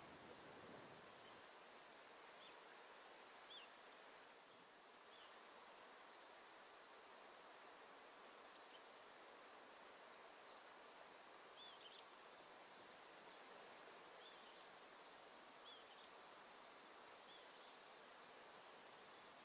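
Near silence: faint outdoor ambience, a soft steady hiss with a thin high tone, and short faint high chirps every second or two.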